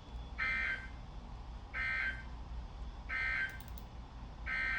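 Electronic alert beeping from a weather alert radio: short high-pitched beeps about a second and a half apart, three of them, with a fourth, longer one starting near the end, signalling a warning for the listener's own area.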